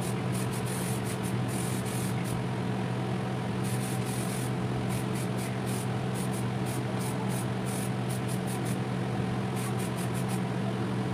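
2K aerosol spray paint can hissing in bursts as it is sprayed onto a cast aluminium intake manifold. There is a longer burst at the start, a short one about four seconds in, and several quick bursts near the end, over the steady hum of a fan.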